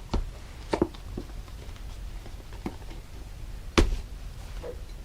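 Handling noise from silicone collapsible dog bowls being popped open and handled: a few scattered soft taps and knocks, with one sharper, louder knock about four seconds in.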